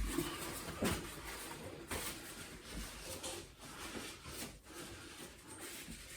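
Faint handling sounds of cistern plumbing work: a few light clicks and knocks, as of hand tools and plastic fittings being moved and tightened.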